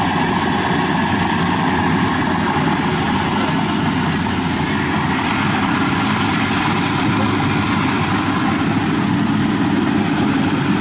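FMWorld WD 102pro rice combine harvester running steadily as it cuts and threshes rice: a continuous engine and machinery drone with no breaks.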